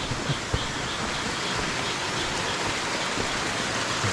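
Steady rushing of a small mountain stream: an even hiss of running water.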